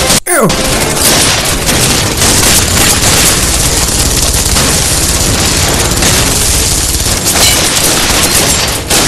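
Movie battle sound effects: heavy, continuous gunfire from many weapons, volleys overlapping without a break, with booms mixed in.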